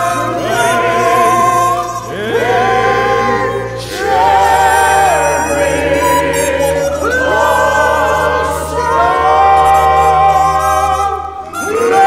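Several voices singing together in long held phrases with vibrato, over instrumental accompaniment with a steady low bass line.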